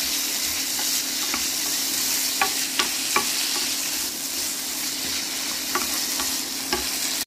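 Lardons, onions and chopped tomatoes sizzling in a frying pan, stirred with a wooden spatula. A steady frying hiss runs under about half a dozen light taps of the spatula against the pan.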